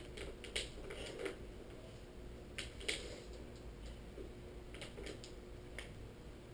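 Dry-erase markers handled in a whiteboard's metal marker tray: a scattering of light clicks and clacks, about a dozen in all, in small clusters, over faint room hum.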